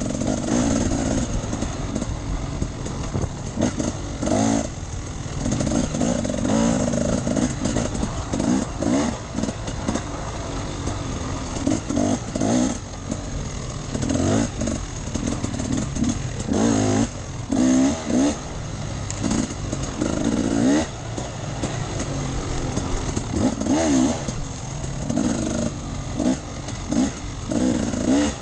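Enduro dirt bike engine being ridden off-road, revving up and dropping back over and over in short surges every second or two as the throttle opens and closes.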